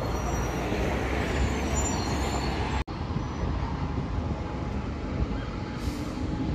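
Town-centre traffic noise with a single-deck diesel bus running close by at a stop, a steady low rumble. The sound cuts out for an instant about three seconds in.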